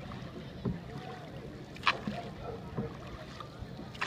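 Boat under way on a river: a steady low drone, with one sharp knock about two seconds in and faint voices.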